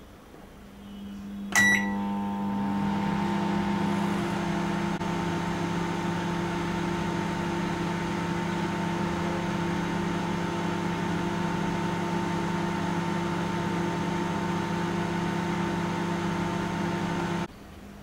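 Onida Black Beauty convection microwave oven running on high power: a short beep about a second and a half in, then a steady electrical hum with a low drone that cuts off suddenly near the end.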